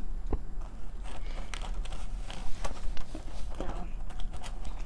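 Scattered small clicks and scrapes of a hand picking fries out of a foam takeout box, over a faint steady low hum.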